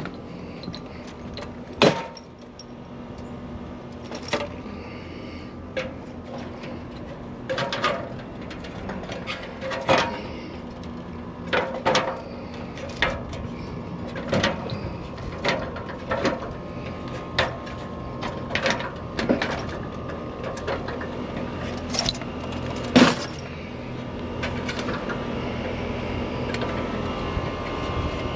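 Irregular sharp knocks and clinks, one every second or two, over a steady mechanical hum that grows louder toward the end.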